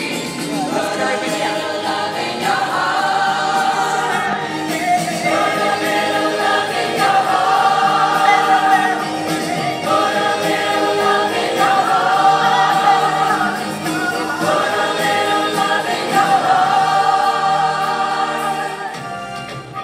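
A group of amateur voices singing together, choir-style, in long held phrases of about two seconds each; the singing drops away near the end.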